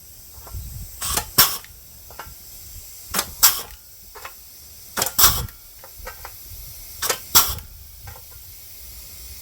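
Hole-punch and flange tool punching holes through sheet-metal patch panel: four double snaps, one about every two seconds, each hole a sharp punch-through click followed by a second click. The holes are for plug welds.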